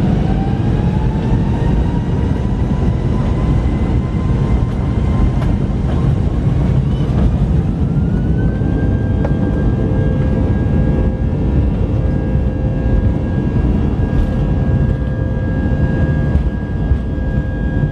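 Airbus A319 turbofan engines heard from inside the cabin, spooling up with a rising whine, then rising again in a second step about eight seconds in and holding at a steady high whine over a loud low rumble: engines being brought up to take-off thrust for the take-off roll.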